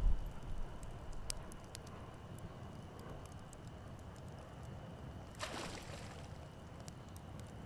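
Night ambience at the water's edge: a steady low rumble of wind with faint water lapping and scattered small clicks, and a short rush of water washing in about five and a half seconds in.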